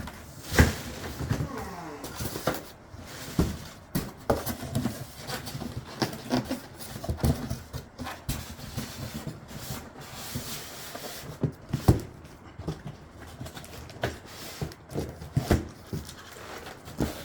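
Irregular knocks, thumps and rustling from cardboard box and packaging being handled, with a few sharper clacks.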